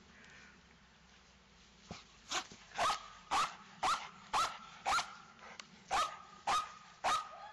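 A young Malinois-cross dog barking at the helper in protection training: a quick series of about nine sharp barks at roughly two a second, starting about two seconds in, with a brief pause midway.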